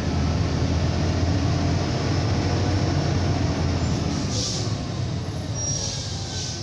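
Scania 113 truck's six-cylinder diesel heard from inside the cab, running with a steady low drone in gear on a long mountain descent. Two brief hisses come near the end, about four and a half and six seconds in.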